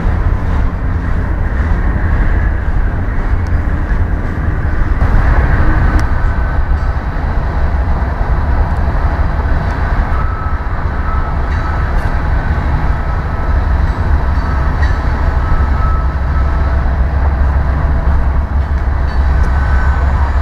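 Empty coal train rolling past with a steady heavy rumble from the hopper cars and diesel locomotives. In the second half the rear pusher, a Union Pacific GE AC4400CW, draws near, and a thin steady whine runs over the rumble, a strange sound that might come from the turbocharger or traction motors of the hard-shoving pusher.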